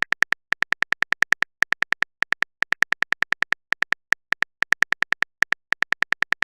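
Rapid electronic beeps, each a short identical high blip, about six a second with brief pauses between runs: a typing sound effect for a text message being written out.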